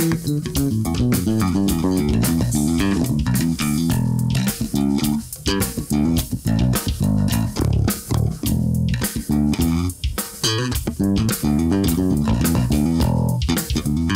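Electric bass guitar playing a fast, busy line of quickly changing low notes, with a drum kit keeping time underneath.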